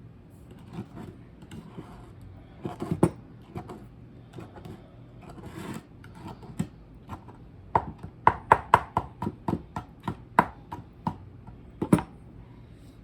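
Spoon knocking and clinking against a bowl while stirring barbecue sauce: scattered knocks, then a quick run of clinks, several a second, for about three seconds near the middle.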